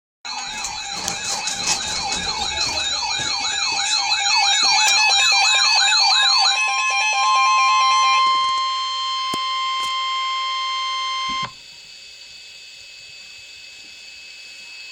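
Several wavering electronic siren wails for about six seconds, then the weather radio's 1050 Hz warning alarm tone: one steady high tone held for about five seconds that cuts off suddenly. A faint steady radio hiss follows.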